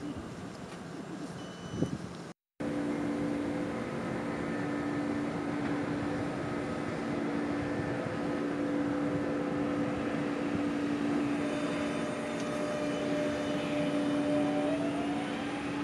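Alstom Coradia Continental (class 440) electric multiple unit standing at the platform, its electrical equipment giving a steady multi-tone hum. Near the end a whine rises in pitch as the traction inverters start the train moving off. Before a sudden cut about two seconds in, there is rushing noise from another train close by.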